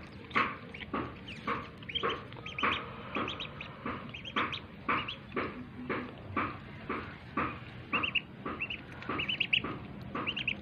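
Domestic ducklings peeping, short high-pitched calls repeated about two or three times a second.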